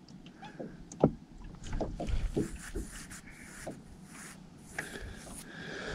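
Scattered light knocks and rustles of rod and tackle being handled in a small fishing boat while the angler fights a big fish on light line.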